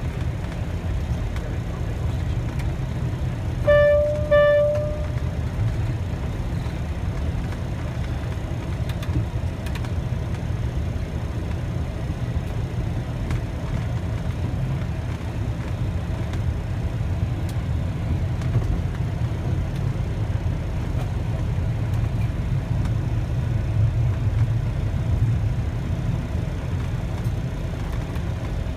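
Steady low rumble of aircraft engine and airflow noise heard from inside the cockpit. About four seconds in, two short electronic tones sound back to back, the second a little longer.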